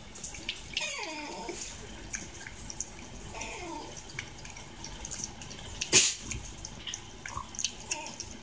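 Cat eating wet cat food from a plastic bowl: quick wet smacking and licking clicks, with one sharper click about six seconds in.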